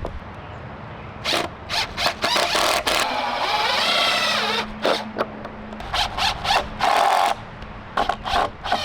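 A steady engine hum under repeated loud scraping and rattling noises, with one longer grating, squealing scrape about three and a half seconds in.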